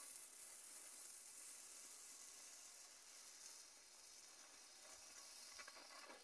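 Small gold-rain firework fountain burning, giving off a faint, steady sizzling hiss as it sprays sparks.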